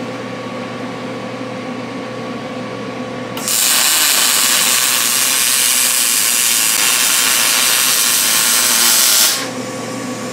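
MIG welding arc from a Vulcan OmniPro 220 running solid wire with argon shielding gas: a steady sizzling hiss that starts about three and a half seconds in and stops sharply about six seconds later. A steady machine hum runs underneath.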